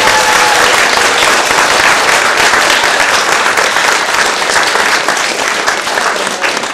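Audience applauding, a dense patter of many hands clapping that starts to thin out near the end.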